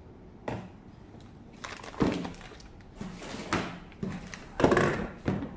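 Clear plastic bag crinkling and rustling in irregular bursts as it is handled, with a light knock or two of plastic toy parts.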